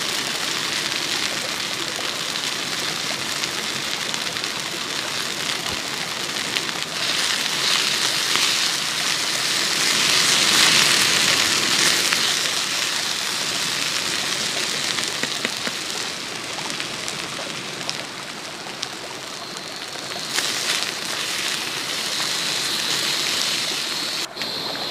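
A small, clear forest stream flowing over stones: a steady watery hiss that swells a little about halfway through.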